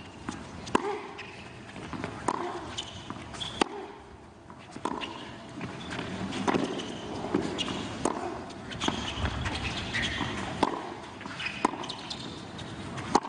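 Tennis ball being hit back and forth in a doubles rally on a hard court: sharp racket strikes and ball bounces about once a second, over a low crowd murmur.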